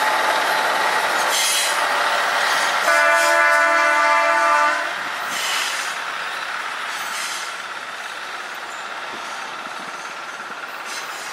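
Queensland sugar cane train running past, its horn sounding once for about two seconds around three seconds in, then its running noise dropping away as it moves off.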